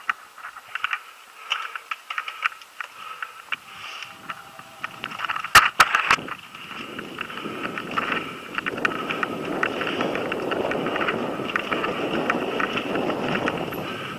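Mountain bike riding over a rough dirt forest trail, heard from a camera on the bike: constant rattling clicks and knocks, a few sharp jolts about five to six seconds in, then a steady rush of wind and tyre noise from about seven seconds in.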